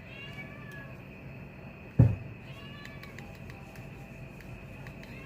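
A cat meowing twice, in short arching calls, with a single loud thump about two seconds in.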